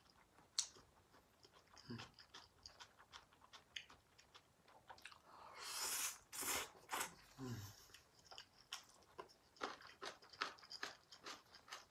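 Close-up chewing of stir-fried yakisoba noodles: wet mouth clicks and smacks throughout, with a longer noisy slurp of noodles about halfway through.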